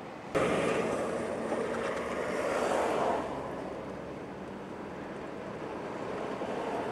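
Road and wind rush from a moving car: a steady rushing noise that starts abruptly just after the start, is loudest for the first three seconds, then eases to a lower steady level.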